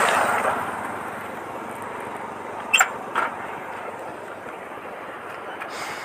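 A bicycle being ridden, its steady rush of wind and road noise easing off over the first second or two, with two quick sharp rattling clicks about halfway through.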